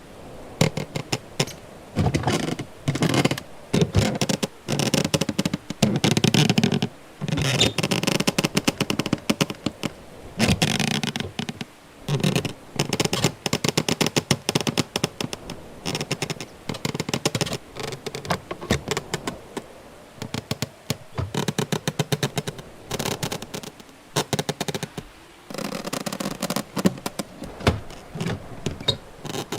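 A run of recorded door sounds one after another: doors, handles and latches clicking, rattling and scraping, some as quick runs of clicks, over a steady faint background sound.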